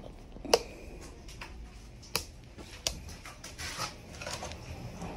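Plastic seedling cell tray being handled and carried: a few sharp plastic clicks and knocks with some rustling in between.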